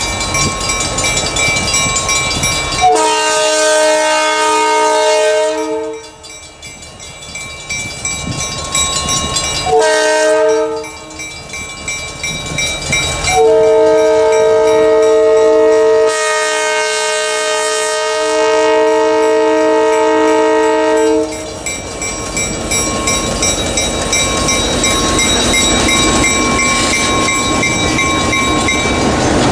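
Horn of an EMD GP9 locomotive, an old cast five-chime Nathan P5, sounding for a road crossing: a long blast, a short one, then a long held blast. A bell rings under it. Near the end the locomotives rumble past close by.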